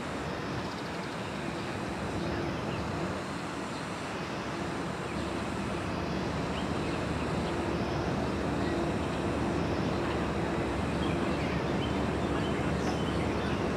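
Steady distant engine noise with a faint low hum, growing slowly louder.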